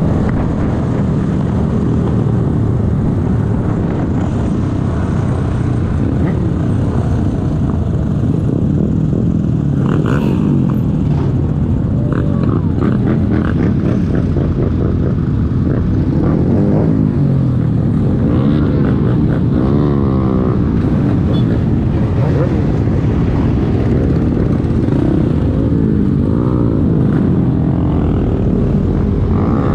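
Motorcycle engine running under way, its pitch rising and falling as the throttle opens and closes, most clearly in the second half.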